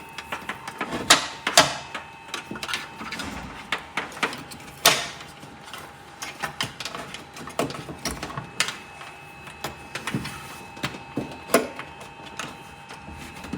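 Irregular clicks, taps and knocks of a wiring cable and plastic trim being handled as the cable is fed through, the sharpest about a second in, just after, and near five seconds, over a faint steady hum.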